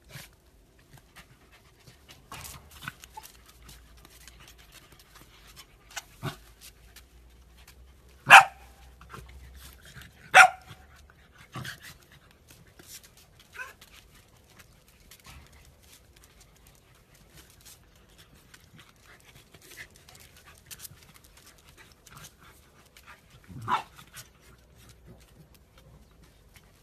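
Corgis barking and panting: a few short, sharp barks, the two loudest about eight and ten seconds in and another near the end, over quiet panting.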